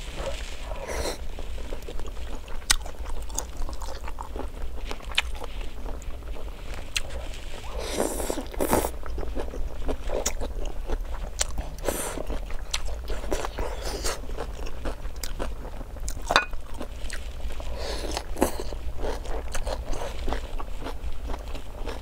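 Close-up eating sounds: chewing and crunching mouthfuls of hot-pot vegetables and beef, with sharp clicks of chopsticks on a plate and now and then a louder slurping or crunching mouthful, over a steady low hum.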